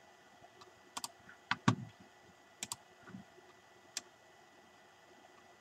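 A few faint, sharp computer mouse clicks, spaced out, some coming in quick pairs like double-clicks.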